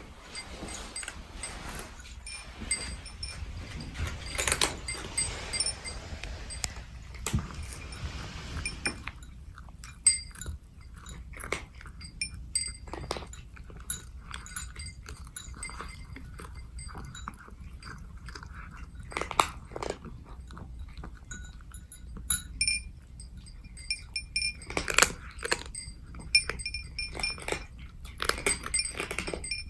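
Bombay cats crunching dry kibble: a continuous run of small, sharp crunches and clicks as they chew.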